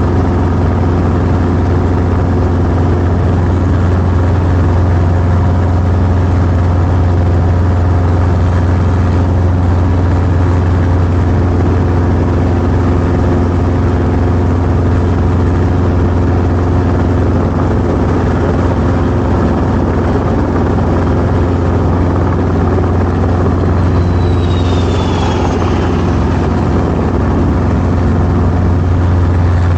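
Training helicopter's engine and rotors running steadily, a constant low drone. A short, faint falling whistle comes through about three-quarters of the way in.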